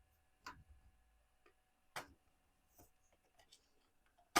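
Plastic clips of a laptop's back panel snapping loose one by one as it is pried off with a tool: a few sharp clicks, the loudest near the end.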